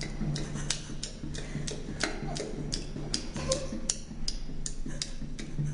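Steady, regular ticking, about three ticks a second, over a low hum.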